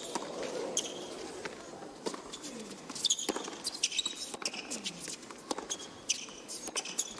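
Tennis rally on a hard court: racquets strike the ball every second or two, and tennis shoes squeak on the court surface.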